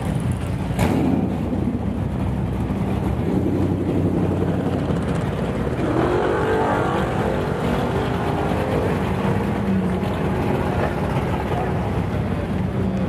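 Drag-race car engines running at low speed in the pits, a steady rumble with some shifting pitch in the middle.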